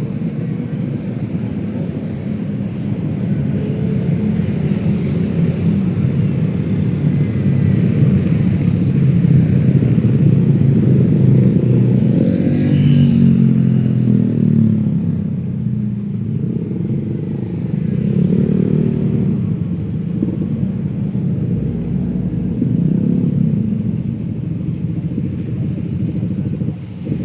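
Busy city road traffic: cars and motorcycles running past in a continuous rumble. The rumble swells as louder vehicles pass, most strongly about a third of the way in, with one engine's pitch rising near the middle.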